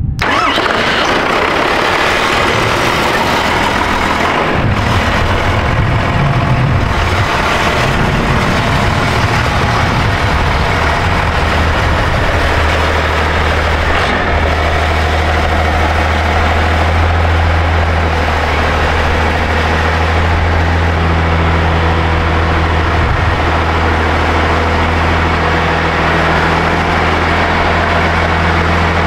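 Cummins diesel engine of a Ford Dentside truck running; its low drone settles into a steady note about halfway through.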